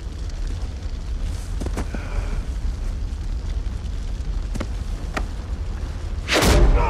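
Action-film sound effects: a low, steady rumble under hissing smoke from a wreck, with a few light knocks. Near the end comes a loud scuffle with a man's grunt.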